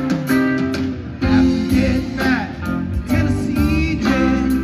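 Live rock band playing, with electric guitar to the fore over bass, drums and keyboard.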